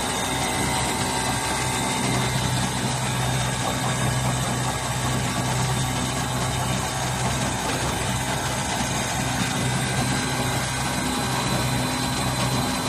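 Automatic curtain hemming sewing machine running with a steady low hum.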